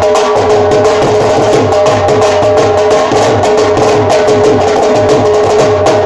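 A dhol, the double-headed barrel drum, played with sticks in a fast, steady rhythm of several strokes a second, with a ringing pitch holding under the strokes.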